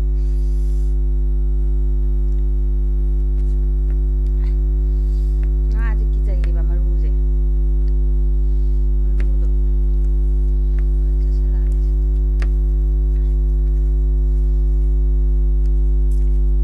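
Loud, steady electrical hum with a low buzz and evenly spaced overtones, a mains-hum fault in the recording that drowns out the other sound. A short, faint wavering call rises over it about six seconds in, and a few faint clicks sound through.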